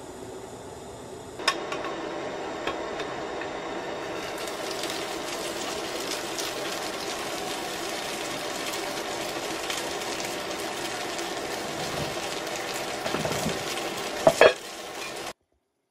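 Food sizzling and frying in a cast-iron pan on a gas burner, a steady crackling hiss. A few sharp knocks come near the end.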